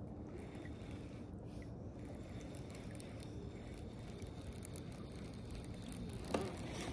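Steady low background rumble with a single sharp click near the end, from hands working a baitcasting reel and its line.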